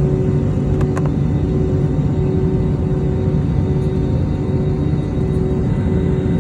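Cabin noise inside an Airbus A321neo taxiing at low thrust: a steady low rumble with a steady hum, without the roar of takeoff power. Two faint clicks about a second in.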